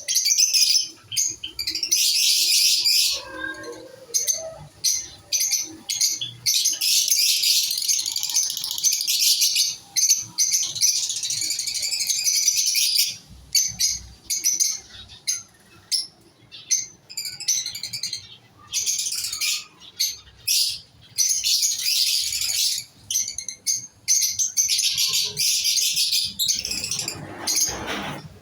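Small cage birds in an aviary chirping densely and shrilly, with many overlapping high calls and only brief pauses.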